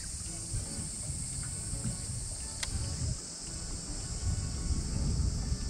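Steady high-pitched insect chorus buzzing without a break, over an uneven low rumble, with one sharp click about two and a half seconds in.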